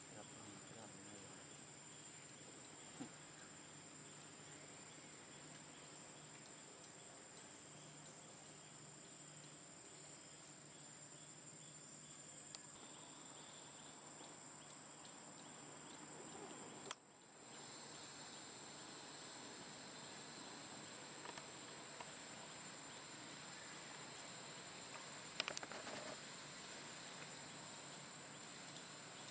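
Faint, steady high-pitched insect chorus. A single sharp click comes a little past halfway, and a few small clicks near the end.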